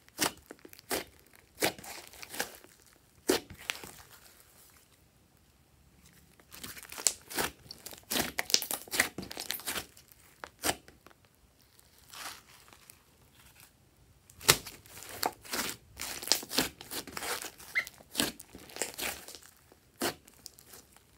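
Hands squishing, pressing and stretching a large mass of fluffy slime with foam beads mixed in, giving irregular crackling clicks in busy spells. There is a quieter gap about five seconds in, and another a little after the middle.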